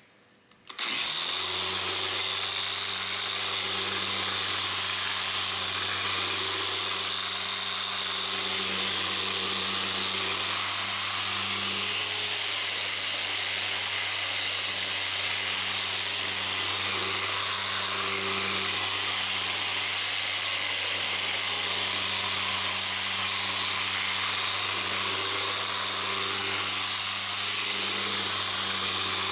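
Random orbital sander switched on about a second in and running steadily with its pad on a Corian solid-surface countertop. It makes an even motor whir with a high hiss from the pad rubbing the surface.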